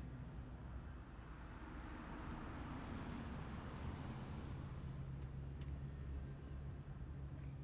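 Road vehicle passing by: a swelling rush of tyre and engine noise that peaks about three seconds in and fades away, over a steady low hum of distant traffic.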